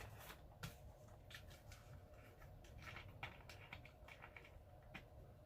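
Near silence broken by faint, scattered mouth clicks of someone chewing a dry butter shortbread cookie.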